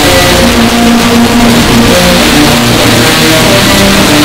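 Bagpipes playing a tune over their drones, the sound so overdriven and clipped that it turns into a harsh, loud buzzing distortion. The melody notes change every fraction of a second.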